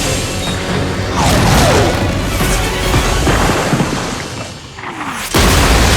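Action-film score under a dense mix of jet and missile effects, with falling whooshes in the first half. After a brief dip, a sudden loud blast hits about five seconds in: the SAM site exploding.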